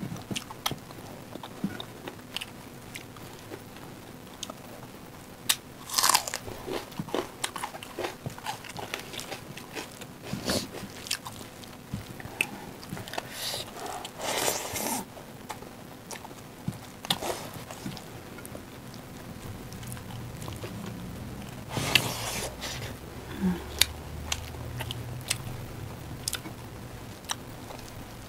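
Close-miked eating by hand: chewing with small wet clicks, and several louder crunchy bites spread through.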